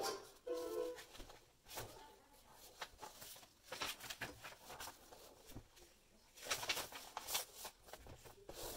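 Paper rustling and crinkling, with light taps of sheets against a cardboard shipping box as they are handled. A denser, louder stretch of rustling comes about two-thirds of the way in. Background music fades out about a second in.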